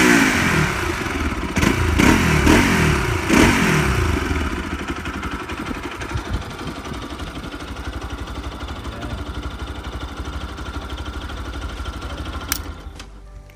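Kawasaki RS200's single-cylinder engine through its stock exhaust, blipped four times in quick succession, each rev falling back, then idling steadily. A sharp click near the end, after which the engine sound drops away.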